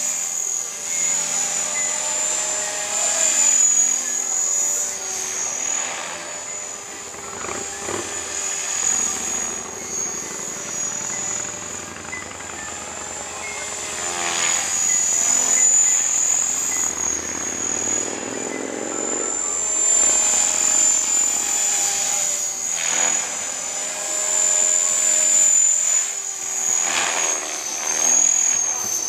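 Align T-Rex 500 radio-controlled helicopter flying, its motor and rotor blades giving a steady high whine and buzz. The pitch swings up and down as it manoeuvres, most clearly about halfway through and again near the end.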